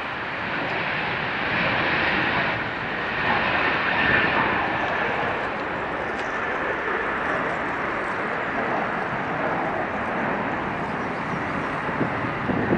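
Jet airliner engines at takeoff thrust: a steady rushing noise, with a faint high whine that drops slightly in pitch about four seconds in.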